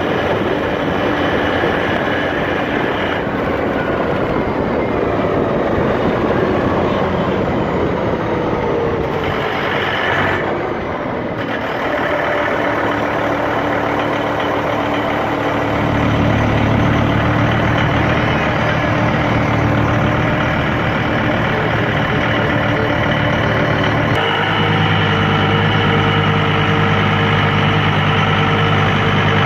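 John Deere 4250 tractor running with the John Deere 3970 pull-type forage harvester in tow, a loud steady machine noise. About halfway through, a deeper steady hum comes in, and the sound shifts again a little later.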